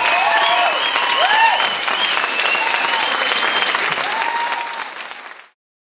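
Audience applauding, with cheers and whoops over the clapping. It fades out and stops about five seconds in.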